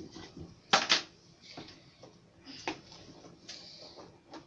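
Toy box being opened and its plastic contents handled: a few sharp clicks and rustles, the loudest a quick double click about a second in.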